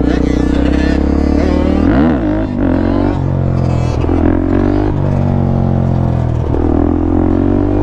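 Suzuki DRZ400SM supermoto's single-cylinder four-stroke engine under throttle during a wheelie, its revs rising and falling sharply about two seconds in and changing several more times, with wind rushing over the helmet camera.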